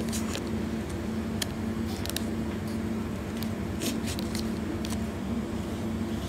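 Plastic dango tub and its paper label being handled, giving a scatter of light clicks and crinkles, over a steady low hum in the room.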